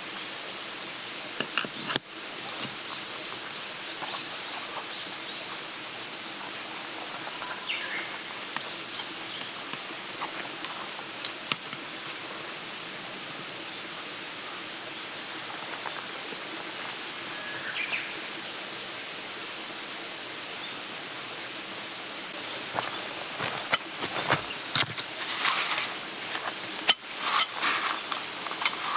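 Steady outdoor background noise, an even hiss like running water or wind, with a few faint chirps and small ticks. About 23 seconds in, a run of sharp clicks and knocks starts and carries on to the end.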